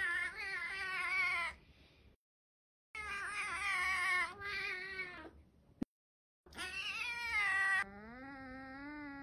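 Ginger-and-white domestic cat yowling: three long, wavering, drawn-out calls with sudden silent breaks between them. Near the end comes a lower, quieter call that slowly rises in pitch.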